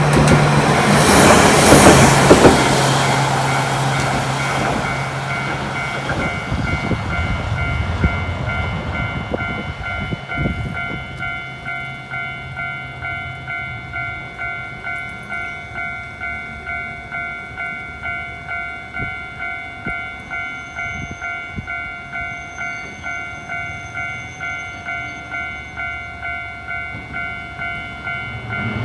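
Japanese level-crossing warning bell ringing steadily at about two strokes a second. A Hankai Tramway tram passes loudly over the crossing in the first few seconds and fades away by about six seconds.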